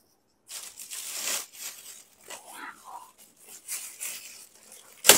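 Plastic takeout bag crinkling and rustling in irregular bursts as it is handled and pulled open, with one sharp, much louder crackle near the end.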